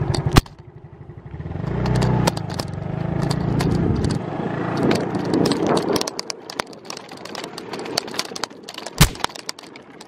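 Motor scooter engine running on a ride, building over the first two seconds and easing off after about six, with scattered clicks and rattles and one sharp knock about nine seconds in.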